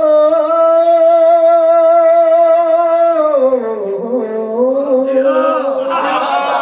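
A man sings an Urdu manqabat (devotional praise song) through a microphone, holding one long steady note for about three seconds before sliding down to a lower held note. Near the end, more voices join in.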